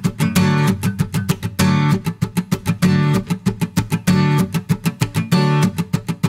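Background music: acoustic guitar strummed in a quick, steady rhythm.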